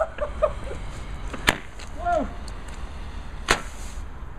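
Arm-mounted repeater firework firing: two sharp shots about two seconds apart.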